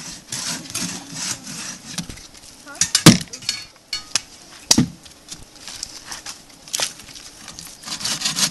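Bow saws rasping through dead branches for firewood, the strokes stopping and starting, with two loud sharp cracks of wood a little after three seconds and just before five seconds.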